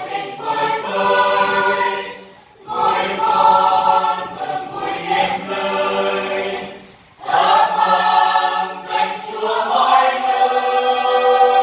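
Mixed choir of men's and women's voices singing a Vietnamese Catholic hymn together, in long phrases broken by two short breath pauses, about two and a half and seven seconds in.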